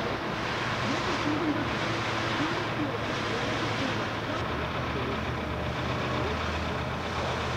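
Road traffic: cars passing on a multi-lane street, a steady rush of engine and tyre noise. A low engine drone comes in about halfway through.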